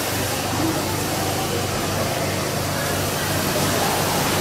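Rotary milking parlour machinery running: a steady low hum over an even noise, with no sudden events.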